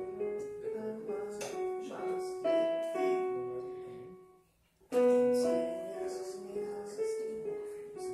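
Digital piano played with both hands: a simple melody over chords, one phrase fading out, a short gap about halfway through, then the same phrase starting again from its first notes.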